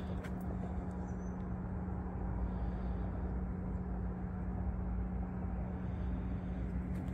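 Steady low hum of a machine running at a constant pitch, over a continuous low rumble.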